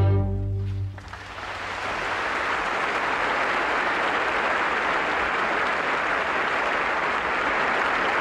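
An orchestra's string chord ends about a second in. Steady audience applause follows and fills the rest.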